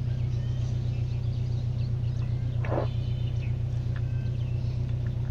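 A steady low hum, with faint high chirps scattered through it and one brief voice-like sound near the middle.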